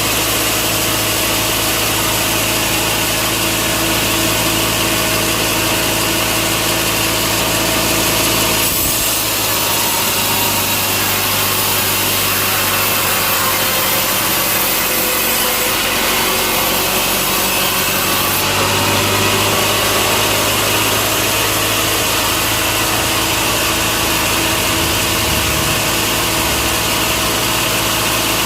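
Sawmill saw running steadily under power, cutting through a log, with the machine's hum of steady tones under the saw's hiss. The sound shifts about nine seconds in and again a little past halfway.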